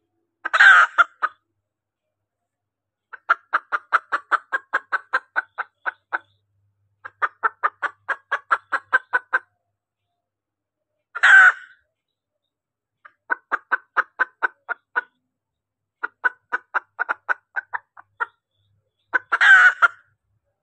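Female junglefowl (hen) calling: trains of short, rapid clucks, about five a second for two to three seconds at a time, broken three times by a louder, harsher call about half a second long. It is the hen's call used as a lure to bring in a male.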